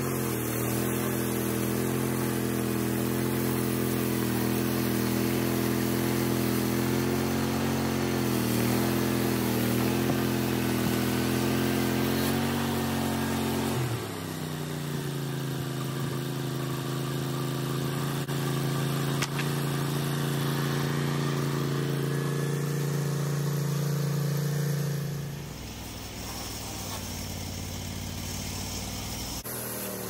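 Range Road 5032 bandsaw mill's gasoline engine running steadily under load as the band blade saws through a plum log. The engine's note shifts about halfway through, and the sound drops in level near the end as the cut finishes.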